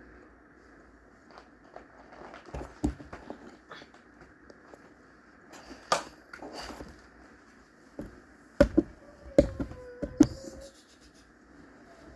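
Scattered sharp knocks and taps at irregular intervals, with softer handling noise between them. The loudest come as a quick cluster about two-thirds of the way through.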